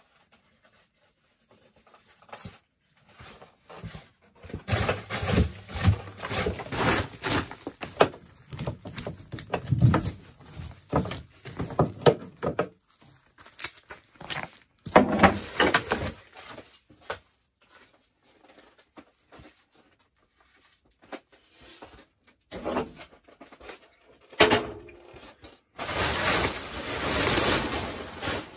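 Plastic tarp rustling and crinkling in several irregular spells as a snow-covered sled load is uncovered and handled, with a few sharp knocks between the spells.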